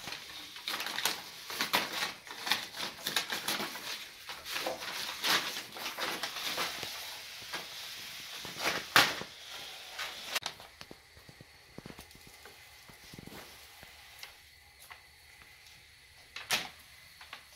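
A large sheet of paper crinkling and rustling as it is dragged over a wooden floor with a cat riding on it, crackling densely for about ten seconds with the sharpest crackle about nine seconds in. After that it goes quieter, with scattered light clicks and one more crackle near the end.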